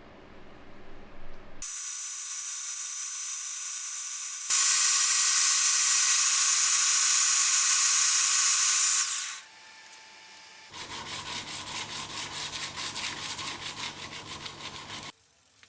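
Power tools grinding steel, in abrupt sections: a high-pitched grinding whine that gets louder about four seconds in and then winds down, followed by a fast rasping rhythm over a low motor hum.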